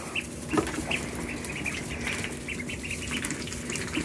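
A brood of ducklings peeping: many short, high peeps scattered throughout, over scratchy rustling as they move about in straw bedding.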